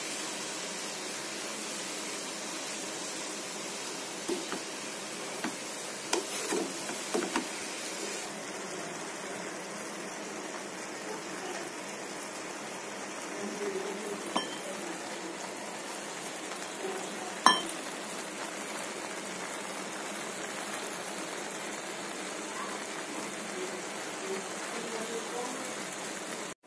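Amaranth leaves cooking in a nonstick pan with a steady soft sizzle, and a wooden spatula knocking and scraping against the pan now and then, with one sharper clink a little past halfway.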